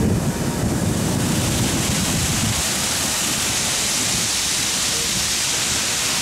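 Steam locomotive hissing steam loudly and steadily as the train moves past the platform, over a low rumble that fades about two and a half seconds in.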